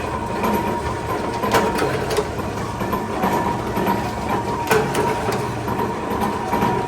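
Workshop machinery running steadily with a low hum and a thin steady whine, with a few sharp metallic clicks and knocks about one to two seconds apart.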